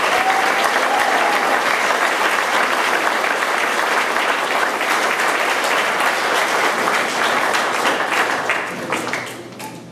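Audience applauding: a dense, steady clapping that dies away near the end.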